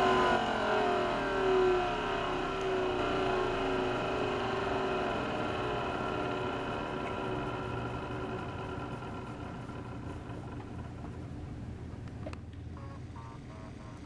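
Hoover Convertible U4127 upright vacuum's motor and fan winding down after being switched off, the whine falling steadily in pitch and fading away.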